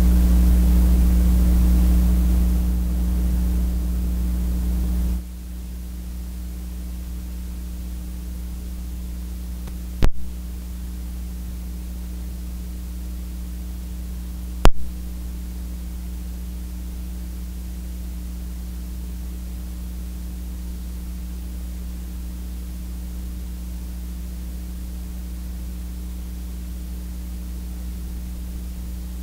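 Steady electrical mains hum and hiss from a public-address system whose microphone is not working. The hum drops in level about five seconds in, and two sharp clicks come about ten and fifteen seconds in.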